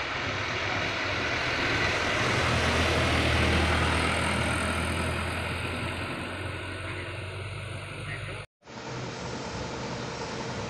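Loaded sugarcane truck's engine running as it drives past, loudest three to four seconds in, then fading as it moves away. Just after eight seconds a sudden cut switches to the steadier sound of another truck approaching.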